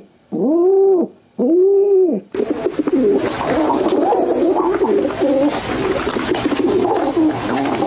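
Pigeons calling: two long, smooth rising-and-falling coos, one after the other. Then, about two seconds in, a whole flock cooing and calling over one another, with a rustle of wings and feet.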